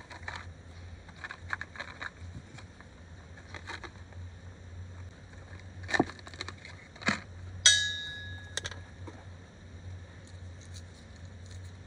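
Handling noise from a small box of Palo Santo incense sticks being opened and a stick taken out: light rustles and taps, two sharper knocks about six and seven seconds in, and a short ringing clink just after. A low steady hum underneath.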